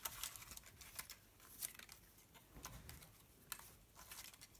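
Faint rustling and light clicking of small cut-out paper sentiment strips being sorted through by hand in a plastic box.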